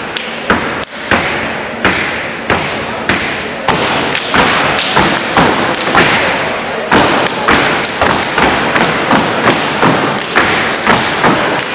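Step team stepping in unison: sharp stomps of feet on a stage floor in a steady rhythm, the strikes coming faster, about two to three a second, from about four seconds in.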